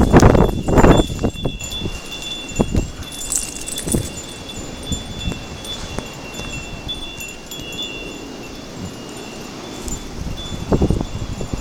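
Wind chimes ringing with high, flickering tones in gusting wind. Wind buffets the microphone, loudest at the start and again near the end.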